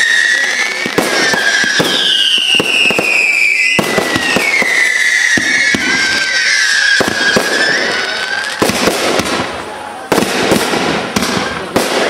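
Fireworks going off: long wavering whistles that slide down in pitch over rapid pops and crackles. In the last few seconds the whistles stop and a quick run of sharp bangs and cracks takes over.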